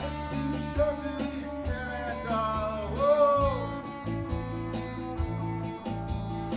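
Rock song with guitar and a steady beat; a melodic line, likely sung, bends up and down in the middle.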